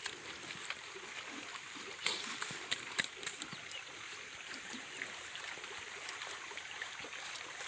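Small open fire of dry grass and sticks crackling: a steady hiss with scattered sharp snaps.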